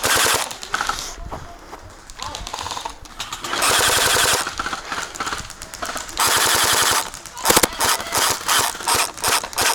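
Electric gel blaster firing full-auto bursts, its motor and gearbox whirring through each burst. There are three sustained bursts of about a second each, at the start, about four seconds in and about six seconds in, then a run of short bursts near the end.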